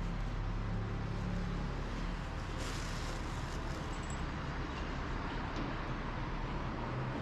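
Road traffic: a steady low rumble of vehicles, with a wider hiss of tyre noise swelling about two and a half seconds in.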